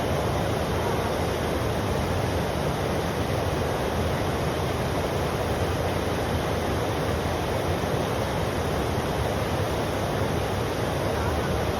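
Steady rushing of river water, an even noise without breaks.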